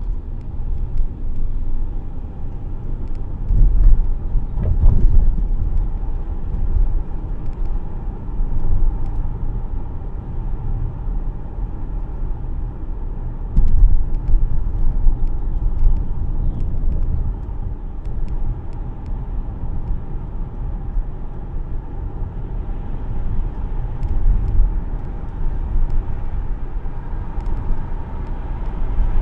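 Car road noise heard from inside the moving car: a steady low tyre and engine rumble that swells a few times.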